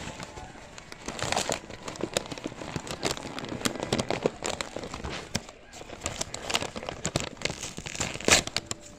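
Food wrapping being handled: paper or plastic crinkling and rustling in irregular bursts of sharp crackles, loudest near the end.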